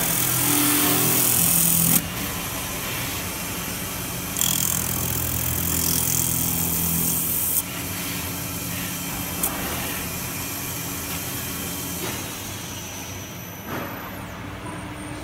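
CNC metal spinning lathe running with a steady low hum, broken by two loud stretches of hissing, grinding noise that cut off abruptly, the first about two seconds in and the second lasting about three seconds from four seconds in; afterwards the machine runs on more quietly.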